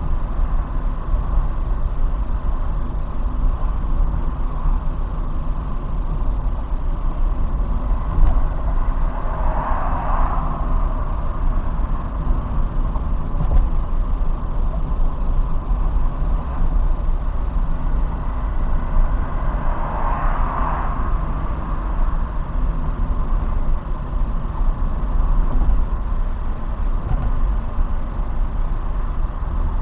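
Steady road and engine noise of a car cruising on a multi-lane expressway, heard from inside the cabin through a dashcam's microphone. Two brief swells of hiss come about ten seconds apart.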